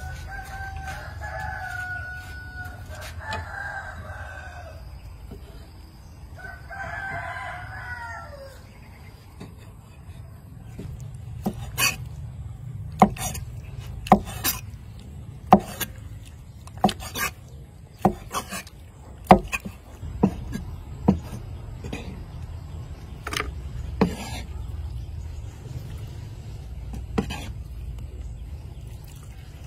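A rooster crows in the first eight seconds or so. Then a cleaver chops on a round wooden chopping block, cutting through cooked intestines in a slow, uneven series of sharp knocks about a second apart.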